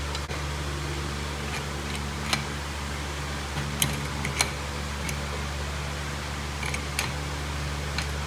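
A few sharp metallic clicks and taps from the parts of a lever-action grease gun as its hose end is screwed into the gun head, over a steady low hum.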